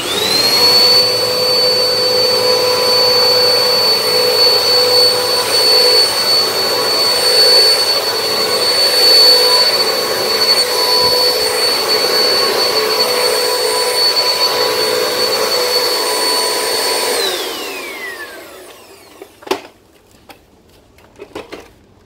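Philco Up Right 2000 W upright vacuum cleaner switched on, its motor spinning up to a steady high whine and running for about seventeen seconds as it sucks a pile of hair and dog fur off a tile floor. It is then switched off and whines down, followed by a couple of clicks.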